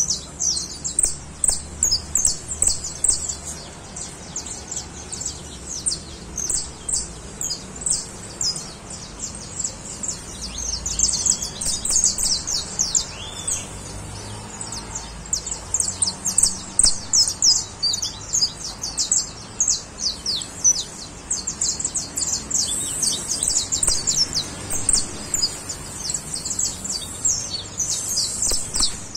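Caged saffron finches singing: long runs of short, high, rapid chirping notes, broken by brief pauses.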